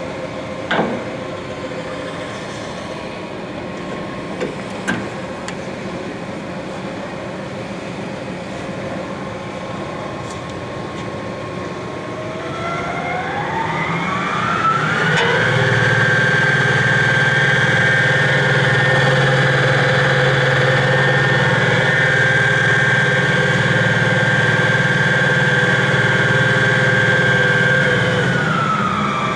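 Clausing Colchester 12VS variable-speed engine lathe running under power, with a steady hum and whine and a few sharp clicks in the first seconds. About halfway through, the whine rises smoothly in pitch and gets louder as the spindle speed is turned up. It holds steady at the higher speed, then falls near the end as the speed comes back down.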